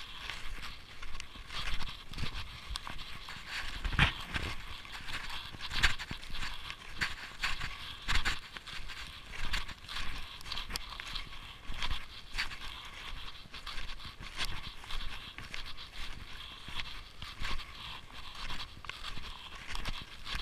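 Snowshoe steps crunching in snow at a walking pace, roughly one a second, with hard breathing close by.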